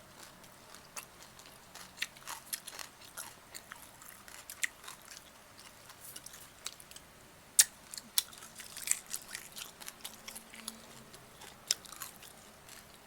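Close-up mouth sounds of eating grilled chicken: chewing and lip smacking, a steady scatter of short wet clicks, with one sharper snap about seven and a half seconds in.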